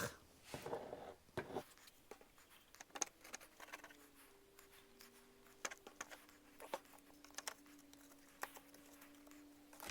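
Sparse light clicks and taps of wooden shutter boards being handled and set in place, with a faint steady hum coming in about three seconds in.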